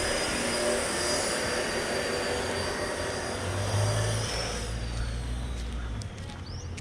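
Construction power tool running with a steady, high whine over a noisy din; about four and a half seconds in, the whine slides down in pitch and the noise fades as the tool winds down.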